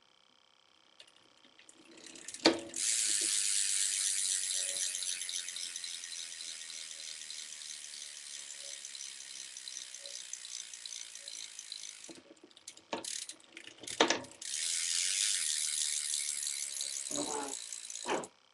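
Rant BMX hub freewheeling as the wheel spins: a fast, dense clicking of the pawls that slowly fades. It comes twice, each time starting with a knock, and the second run is stopped suddenly near the end.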